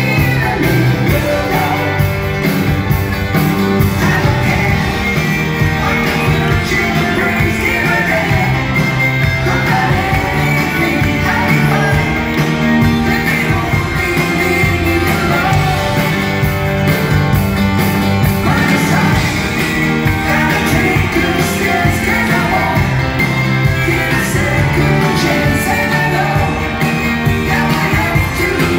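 Live rock band playing a song, with a lead singer and electric guitar, recorded from the audience in a concert hall.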